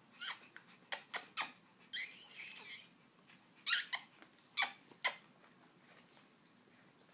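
Four-week-old puppy squeaking: a run of short, high squeaks that slide down in pitch, with one longer squeal about two seconds in, ending about five seconds in.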